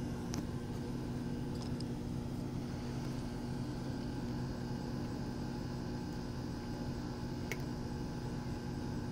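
Steady low machine hum, with three faint short ticks.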